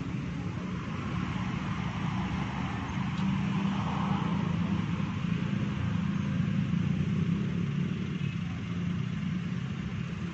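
Road traffic crossing a railway level crossing: cars, a small box truck and motorcycles running past, a steady low engine hum under a wash of traffic noise.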